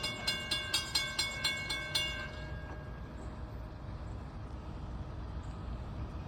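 Mechanical grade-crossing bell ringing with rapid, even strokes, about four a second, which stops a little over two seconds in, leaving a steady low rumble.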